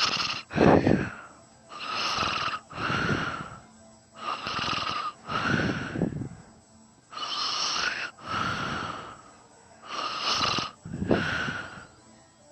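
Person snoring in sleep. Each breath is heard as a pair of noisy pulses, in and out, about one breath every three seconds.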